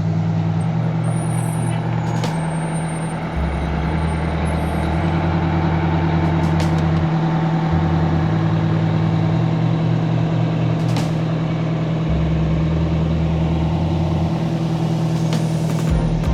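A large vehicle's engine running steadily with a continuous low hum, and a few brief clicks over it.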